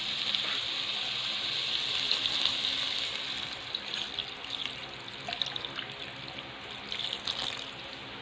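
Thin second-pressing coconut milk poured into a hot pan of sautéed banana blossom, a steady pouring hiss that fades after about three seconds, followed by a few light clicks.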